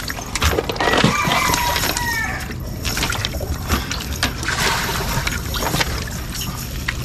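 Water splashing and sloshing in uneven bursts.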